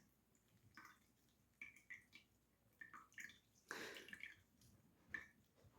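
Faint drips and small wet squishes as half a lime is squeezed into a mixed drink: a few scattered short drops, with a slightly longer squeeze about four seconds in.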